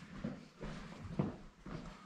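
A few faint knocks and clicks of parts being handled.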